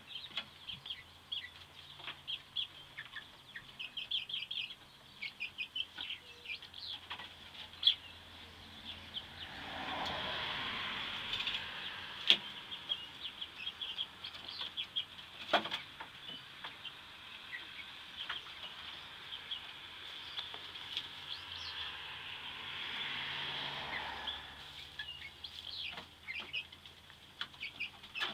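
Young seven-week-old chickens peeping, a steady stream of short high chirps, with a few sharp knocks and two longer swells of rushing noise about ten and twenty-two seconds in.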